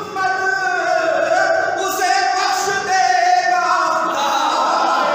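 A man's voice singing verses into a microphone, holding long notes in a melodic recitation.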